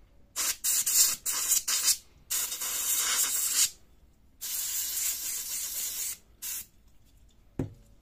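Can of compressed air blowing through a straw nozzle into a laptop cooling fan and heatsink: a run of short bursts, then two longer blasts of a second or two each and one last short burst. A single tap near the end.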